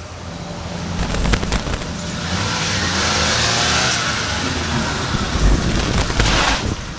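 A small hatchback car driven hard: the engine revs with a loud rushing noise that builds over the first few seconds, holds, and drops off sharply near the end, with a few sharp knocks along the way.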